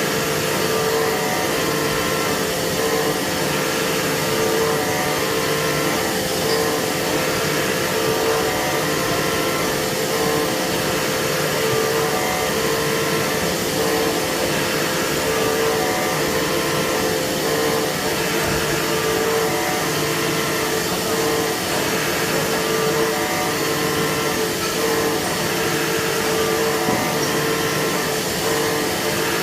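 A CNC machine runs steadily while machining a metal core box mould: a continuous whirring with a constant pitched hum that does not change.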